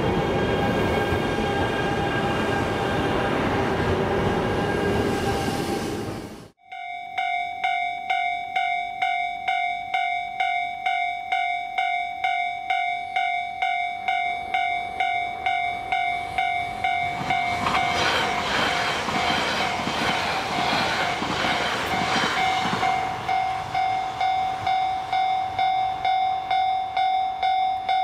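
Japanese railway level-crossing warning bell dinging steadily, about twice a second, after an abrupt cut from a few seconds of rumbling noise. A swell of rushing noise rises and fades under the bell midway.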